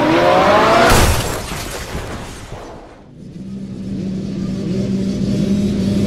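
Intro sound effect: an engine revving up with its pitch climbing, cut off about a second in by a loud crash-like whoosh that fades away. A low steady hum sets in about halfway through.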